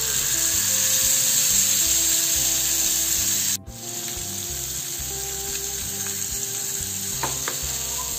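Whole marinated pomfret sizzling loudly in hot oil in a nonstick frying pan, just after being laid in. The sizzle cuts out for a moment about three and a half seconds in, then carries on somewhat quieter.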